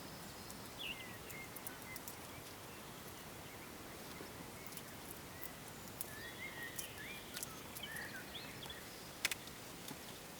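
Quiet outdoor ambience with a steady hiss, faint bird chirps in two short spells, and scattered small clicks, one sharper pair near the end.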